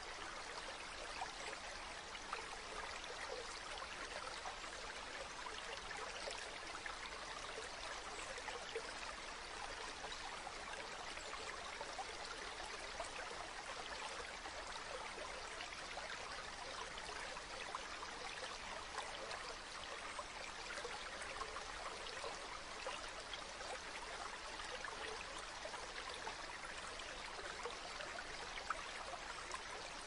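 Running water with a steady, even rush.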